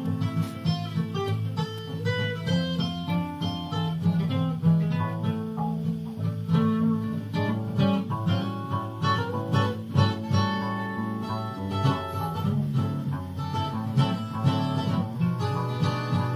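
Guitar music with a fast run of plucked notes. It stops abruptly just before the end.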